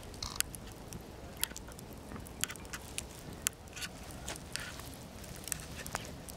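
A small fire crackling with sharp, irregular pops and crackles as the hem of blue fluffy fleece pants burns over embers, over a low steady rumble.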